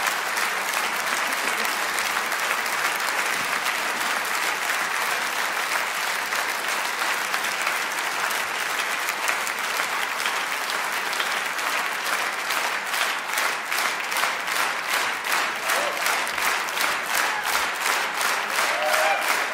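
Large theatre audience applauding; about twelve seconds in, the scattered clapping falls into rhythmic applause in unison, about three claps a second.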